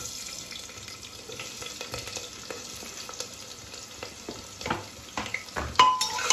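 Chopped onion sizzling as it lands in hot oil in a pressure cooker, a steady hiss that starts suddenly. A perforated metal ladle stirs it, clinking and scraping against the pot, with a few louder knocks near the end.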